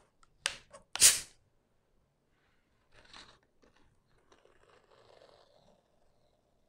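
Plastic Coca-Cola Zero bottle cap being twisted open, the carbonation escaping in short sharp hisses, the loudest about a second in and a weaker one about three seconds in, followed by faint fizzing.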